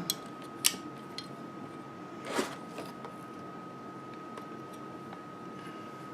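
A few sharp clicks and handling noises from a folding karambit knife being worked in the hands, with a short rustle about two seconds in. A faint steady high tone runs underneath.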